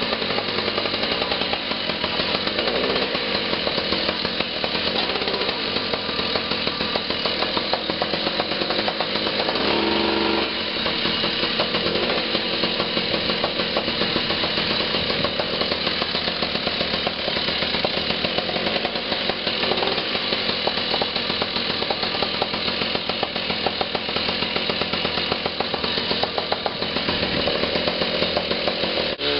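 Combat robot's motors running during a first drive and self-righting test: a steady machine drone with a fast pulsing flutter that shifts briefly about ten seconds in.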